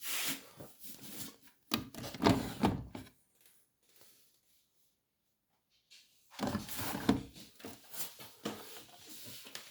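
Handling noises: irregular knocks, clicks and rubbing in two spells of about three seconds each, with a pause of near silence between them.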